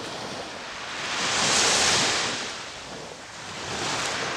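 Sea waves washing onto the shore: one wave swells and fades about two seconds in, and a smaller one follows near the end.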